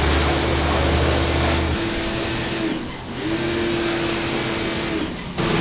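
Pressure washer running and spraying water onto a motorcycle: a steady hum under the hiss of the jet. About three seconds in, the hum dips briefly in pitch and then recovers.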